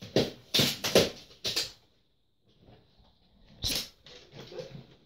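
Hard-shell wheeled suitcase being handled: several quick scrapes and knocks in the first second and a half, then a louder short rattle a little past halfway as its telescopic handle is pulled up.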